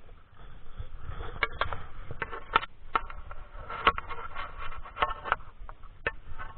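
Handling noise as a clamp-mounted device is fastened to a motorcycle's front fork: irregular sharp clicks and scraping, starting about a second in and going on for several seconds.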